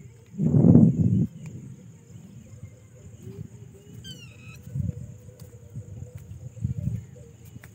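Rural outdoor sounds on a lapel microphone: a steady high insect drone, and a bird giving a quick run of falling chirps about four seconds in. The loudest thing is a low rumble on the microphone about half a second in, with softer bumps near the end.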